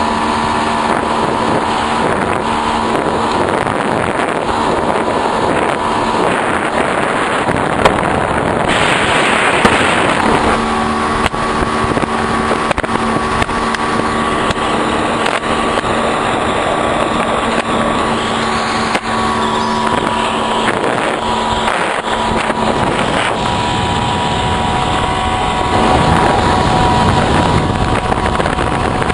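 A motorboat engine runs steadily under way, its pitch holding even, over a constant rush of wind and water noise. A louder burst of rushing noise comes about nine seconds in.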